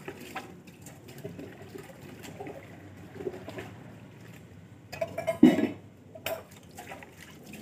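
Steel dishes and pots being washed by hand: irregular clinks, knocks and scrapes of metal utensils, with a louder clatter about five and a half seconds in.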